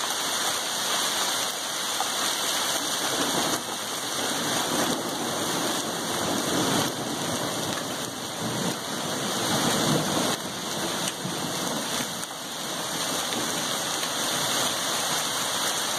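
Hailstorm: hail and heavy rain falling steadily, a dense continuous hiss that swells and eases slightly every few seconds.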